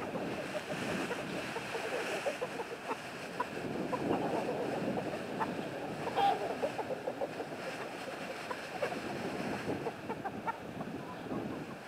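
Rustling and crunching of a plastic bag being shaken and dry leaves underfoot as food scraps are scattered, with backyard hens clucking around it and one louder call about six seconds in.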